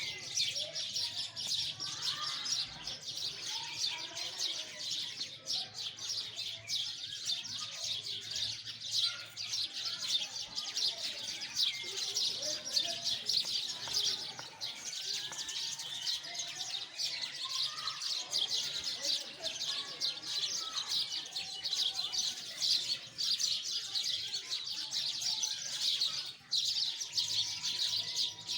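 A flock of sparrows chirping: many rapid, high chirps overlapping into a continuous chatter.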